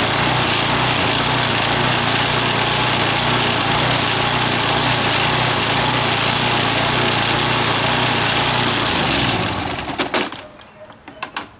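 Small gasoline engine of a Troy-Bilt pressure washer running steadily with its newly fitted pump, then shutting off and winding down about nine seconds in. A few sharp clicks follow near the end.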